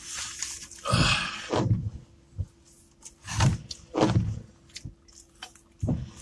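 A man sipping coffee from a cup, with sips, breaths and a few handling knocks, in short bursts separated by pauses. A faint steady hum runs underneath.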